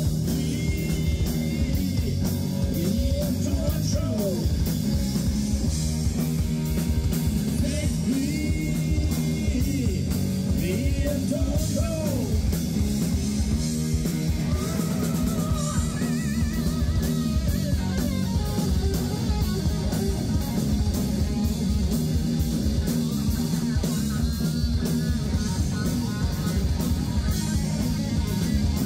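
Live rock band playing, with drum kit and electric guitar over a steady beat.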